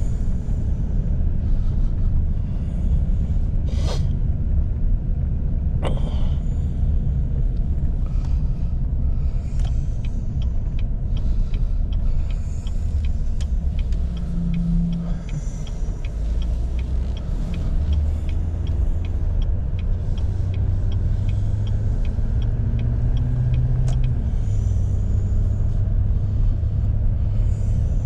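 A pickup truck being driven: steady low engine and road rumble. Two sharp knocks come in the first few seconds, and a regular light ticking, about two a second, runs for a stretch in the middle.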